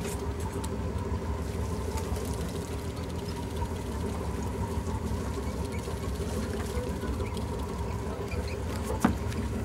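A fishing boat's engine running steadily at idle, a low hum with a faint steady whine above it. A single sharp click comes near the end.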